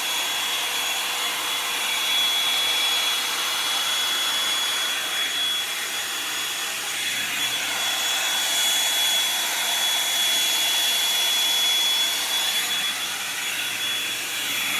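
Revlon One-Step hot-air brush hair dryer running steadily: a loud rush of blown air with a high, steady motor whine.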